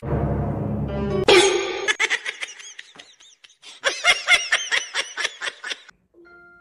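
A person laughing hard, a fast run of high-pitched laughs with a short break in the middle.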